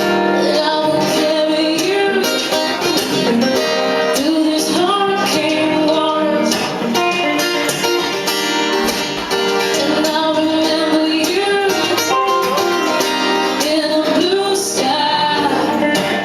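Acoustic guitar strummed under a singing voice with wavering, held notes.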